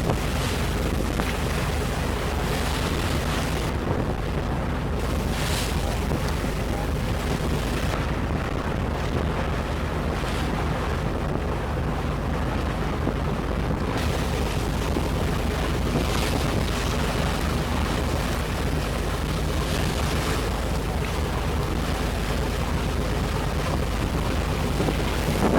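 A tour boat's engine running steadily under way, a low even drone, with wind buffeting the microphone and water rushing past the hull.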